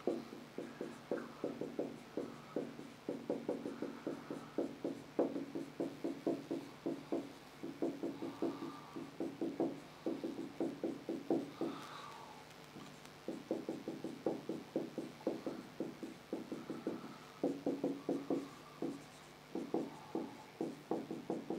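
Whiteboard marker writing on a whiteboard: quick short strokes, several a second, with a short pause a little past the middle.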